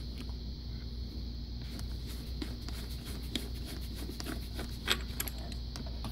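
Small clicks and scrapes of a coax cable connector being unscrewed and pulled off an MFJ-259B antenna analyzer, with one sharper click about five seconds in, over a steady low hum.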